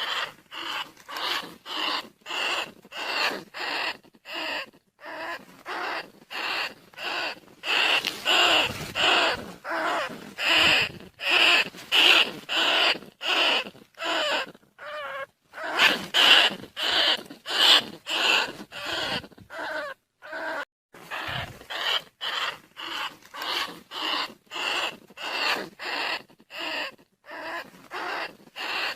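Rat-calling lure for rice-field rats and bandicoot rats: short, harsh squeaking calls repeated about twice a second, with brief silent gaps between them.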